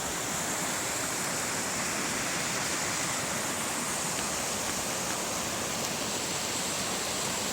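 Fast mountain river water rushing and splashing over rocks in a steady, even roar of white water, with no change.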